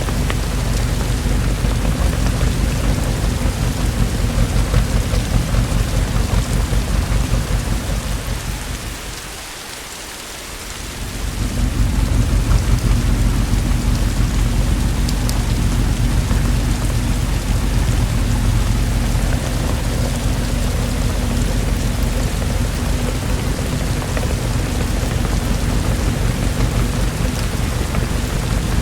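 Steady heavy rain with a deep rumble of thunder underneath. About nine seconds in, the rumble and the overall level dip for a couple of seconds, then come back.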